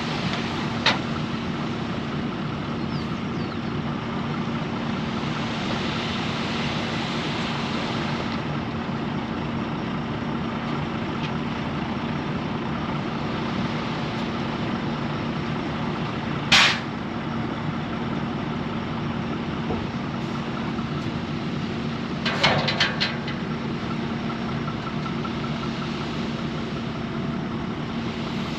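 Engine of heavy earth-moving equipment running steadily, with a sharp clank a little past halfway and a quick rattle of clanks a few seconds later.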